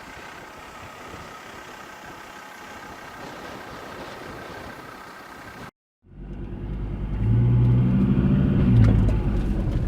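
A steady rushing noise, then, after a sudden cut about six seconds in, a four-wheel drive's engine running under load on a rough track. The engine has a low steady hum that grows louder over a second or so and then holds.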